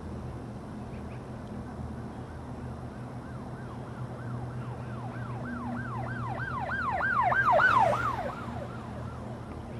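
Emergency vehicle siren in a fast yelp, about three rising-and-falling wails a second. It swells to its loudest near the end, then fades and drops in pitch as the vehicle passes. A steady low hum runs underneath.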